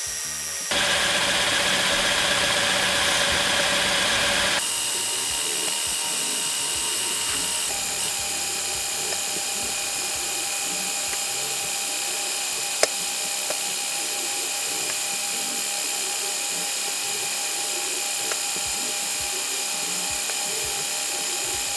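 Lego gantry crane's small electric motors whining steadily as it runs its automated container-moving cycle, the sound sped up fivefold. The whine shifts pitch a few times in the first eight seconds, and there is a single sharp click about 13 seconds in.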